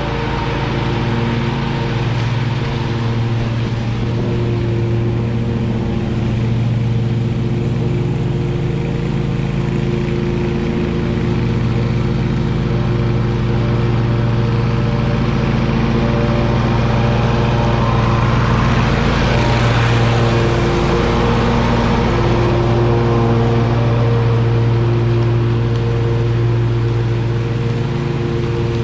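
Exmark Stander stand-on mower's engine running steadily with the deck engaged, bagging leaves into a steel side bagger. There is a swell of rushing noise about two-thirds of the way through.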